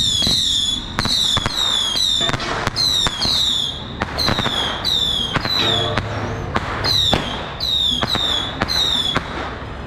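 Whistling firecrackers going off one after another, about every half second. Each gives a short high whistle that falls in pitch and then cuts off, mixed with sharp cracks.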